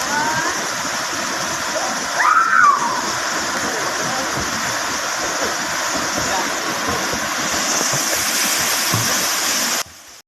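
Waterfall rushing steadily. A short voice call is heard about two seconds in. The sound cuts off suddenly near the end.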